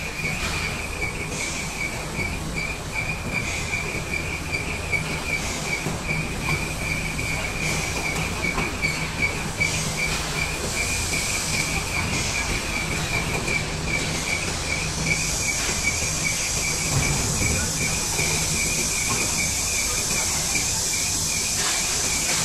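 Truck-mounted telescopic crane's hydraulic system running as the boom is worked, with a steady high-pitched whine that wobbles quickly over a low engine hum. The hum drops away late on while a hiss rises.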